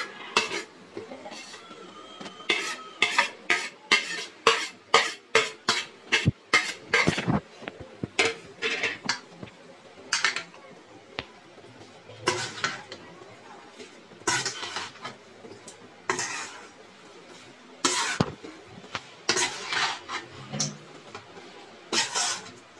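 Metal spoon scraping and clinking against a metal pan as grated raw mango is mixed into cooled oil and spices, with no sizzle. The strokes come in quick runs, closest together in the first several seconds, then spaced out.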